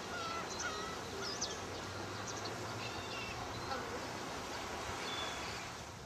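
Black-tailed gulls calling in short, scattered cries over a steady background hiss. The calls come thickly for the first three seconds or so, then thin out to one late cry.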